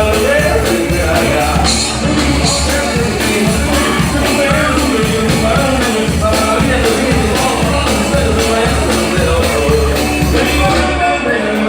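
A live band playing a song loudly, with a singer's voice over a steady beat.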